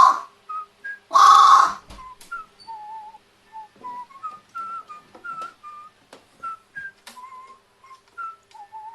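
Pet carrion crow giving two loud, harsh caws in the first second and a half. These are followed by a run of short, soft, wavering whistle-like notes, broken by sharp little sneezes.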